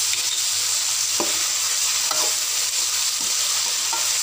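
Long beans sizzling as they stir-fry in a metal wok, with a steady hiss of frying. A metal slotted spatula scrapes and clinks against the wok a few times as the beans are stirred.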